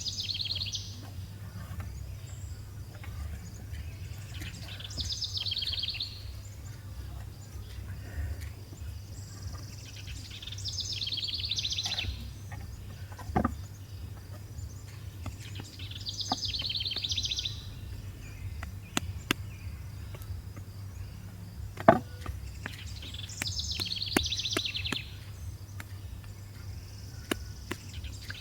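A short trilled call, likely a bird, repeated about every five to six seconds over a steady low hum, with a couple of sharp knocks.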